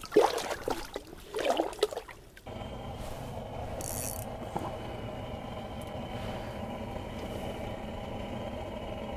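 Lake trout splashing and thrashing as it is lowered back into the water of an ice-fishing hole, in irregular bursts over the first two seconds. This stops abruptly and gives way to a steady mechanical hum, with a brief hiss about four seconds in.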